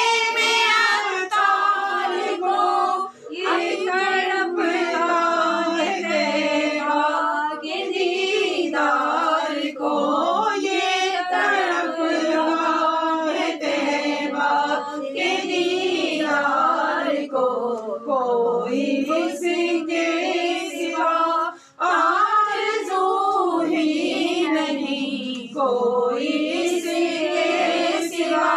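A group of women and girls singing a devotional naat together, unaccompanied, with brief breaks between lines about three seconds in and again past twenty seconds.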